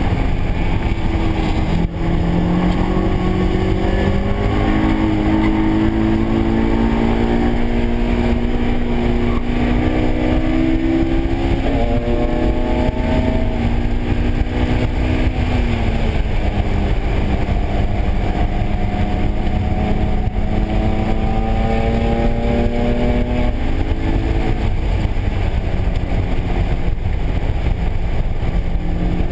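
Honda S2000's four-cylinder engine heard from inside the cabin at track speed, its pitch climbing slowly for about fifteen seconds, dropping, then climbing again before easing near the end. A steady rush of wind and tyre noise runs underneath.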